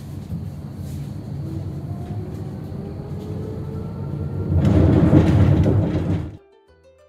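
Tram running on its rails, a steady low rumble with a faint rising whine. It swells into a louder rush about four and a half seconds in, then cuts off abruptly.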